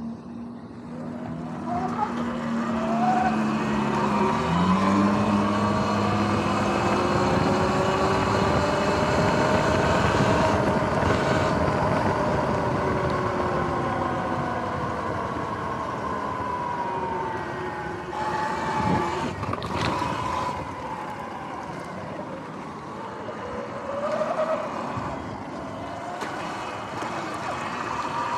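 Electric dirt bike's motor whining, rising in pitch as it picks up speed and falling as it slows, with a shorter rise and fall near the end, over wind and tyre noise.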